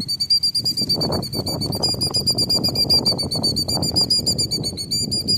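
Killdeer giving a long, rapid trill of high notes, about ten a second, without a break: the agitated call of a killdeer guarding her eggs.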